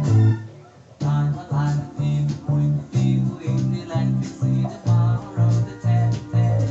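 Electric bass guitar, finger-plucked, playing a repeating samba-reggae line of short, evenly spaced low notes over a backing track. The music dips briefly near the start, then the bass line comes back in.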